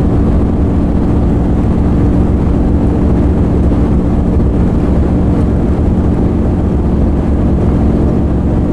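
Steady drone of a 1996 Chevy G30 van's small-block V8 and tyres cruising at highway speed, heard inside the cab, with a constant low hum.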